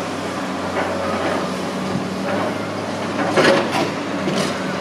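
Excavator's diesel engine running steadily, with a short burst of clanks and scraping a little past three seconds in and another knock shortly after, as concrete slabs are handled on a demolition site.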